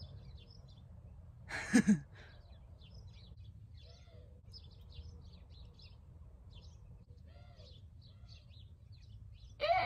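Small birds chirping faintly and sparsely, with faint caws about four and seven and a half seconds in. A short louder call comes near two seconds in, and a loud caw starts right at the end.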